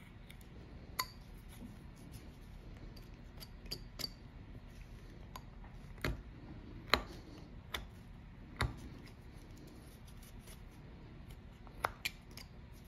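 Carving knife taking small cuts off a hand-held piece of wood: irregular sharp clicks and snaps as the blade finishes each cut, the loudest about seven seconds in.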